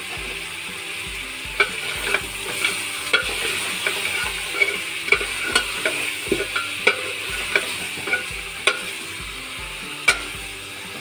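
Mutton, onions and tomatoes sizzling as they fry in a metal pot, being softened before the spices go in. A spatula stirs through them, knocking and scraping against the pot about twice a second, from a second or so in until near the end.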